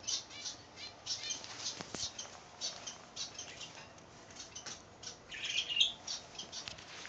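Rabbit chewing fresh parsley: a quick, irregular run of short crisp crunches, several a second.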